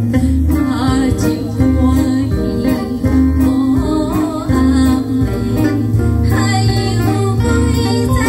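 A woman singing a Taiwanese Hokkien song into a microphone over guitar-led accompaniment with a steady bass pulse, her voice wavering on the held notes.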